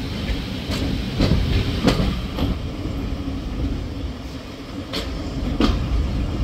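Passenger train running on jointed track: a steady low rumble with the wheels clicking over rail joints, a quick group of clicks about a second in and another near the end.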